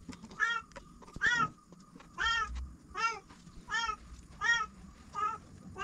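An animal calling over and over: seven short, clear calls, each rising and falling in pitch, about one every three quarters of a second.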